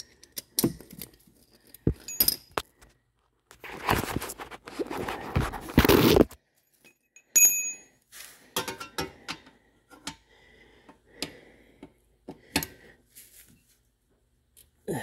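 Metal clicks and clinks of an 8 mm Allen key working the differential drain plug as it is tightened, with a few seconds of rustling and scraping about four seconds in.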